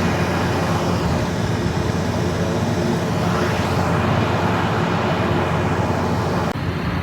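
A steady engine drone under a constant rush of noise; the higher hiss drops away suddenly near the end.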